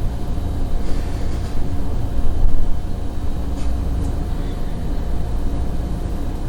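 Steady low rumble with a faint constant hum above it, and two faint ticks around the middle.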